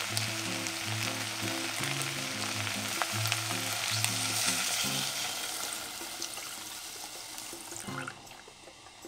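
Kimchi sizzling as it stir-fries in hot sesame oil. About four seconds in, water is poured over it; the sizzle swells briefly, then dies away and is nearly gone near the end.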